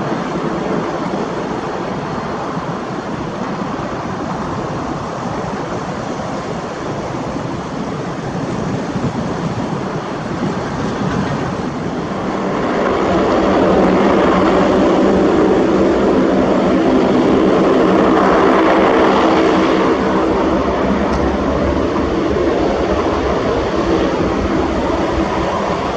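Lockheed C-130 Hercules four-engine turboprop going by: a steady rushing background, then from about halfway a loud propeller drone with several steady tones swells up, holds for several seconds, and eases off slightly near the end.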